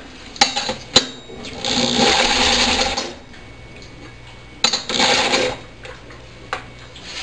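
Small single-cylinder engine, fed HHO gas in place of its carburettor, being spun over in two bursts, the first about a second and a half long and the second about a second, without catching. Sharp clicks come just before the first burst.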